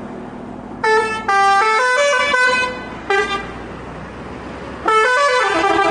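Telolet horn of the bus SCH 716 'Mihrimah Sultan' playing short tunes that step up and down in pitch. A phrase starts about a second in, a longer one follows, then a brief toot around three seconds, and a new phrase starts near the end. A steady low hum runs underneath.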